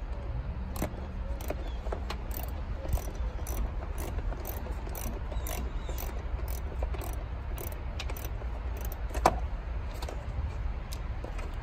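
Hand socket ratchet clicking in short strokes, about two clicks a second, as an 8 mm bolt is backed out, with one louder click about nine seconds in. A low steady rumble runs underneath.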